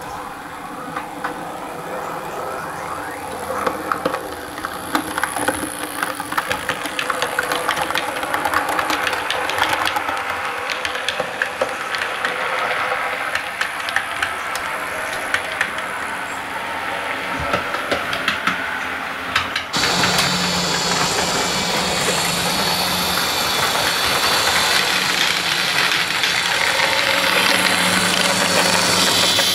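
Model trains running on the track. First, a model tank locomotive and coaches approach, the running noise growing louder with many sharp clicks from the wheels on the rail. About two-thirds through it changes suddenly to a steady engine-like drone and hum as a model Class 31 diesel runs by.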